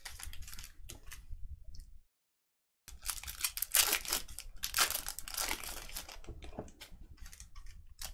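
Trading-card pack wrappers crinkling and tearing as packs are opened and the cards handled, in a string of short rustles. The sound cuts out completely for under a second about two seconds in.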